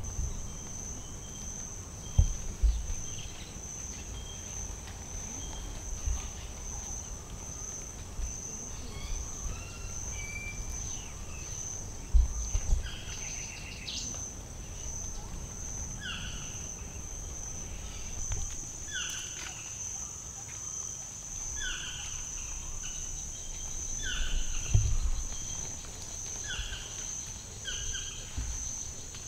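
Rainforest insect chorus: a steady, high-pitched insect buzz pulsing one to two times a second. From about halfway in, a bird repeats a short falling call every second or two. A few low thumps of wind or handling on the microphone are mixed in.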